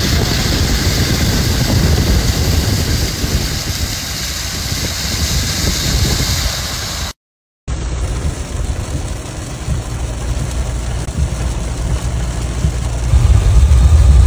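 Car driving in heavy rain on flooded roads: a loud hiss of water and rain over low engine and road rumble, then, after a break about seven seconds in, a deeper rumble of engine and tyres on the wet road inside the cabin that grows louder near the end.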